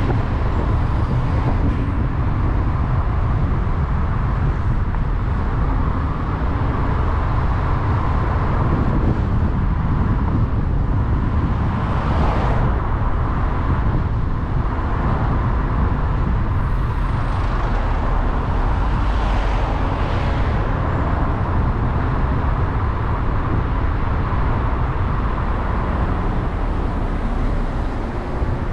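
Steady rumble of a vehicle driving through city street traffic, with a few other vehicles swelling past about halfway through and again a little later.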